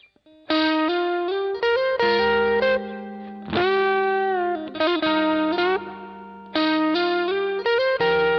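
Suhr Asato Custom Standard electric guitar played through a Suhr Kiko Shiba Drive overdrive pedal: a distorted lead line of sustained notes in short phrases, with string bends and slides, the opening phrase repeating about two-thirds of the way in.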